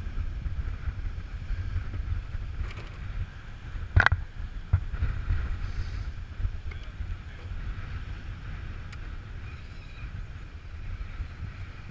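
Wind buffeting the microphone, with surf from the sea behind it. About four seconds in, a sharp knock is the loudest sound, followed shortly by a second, smaller one.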